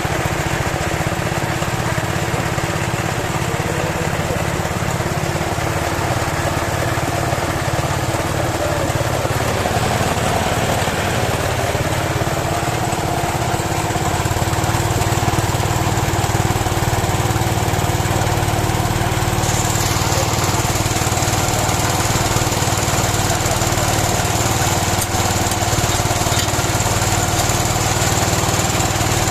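Small pump engine running steadily, driving a water-well drilling rig through a Suzuki Carry gearbox. About halfway through it gets slightly louder and its tone shifts.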